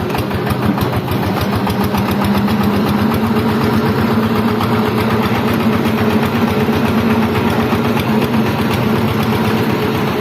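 Single-cylinder Changfa diesel engine running steadily, a fast, even beat of firing strokes over a steady hum that rises slightly about two seconds in.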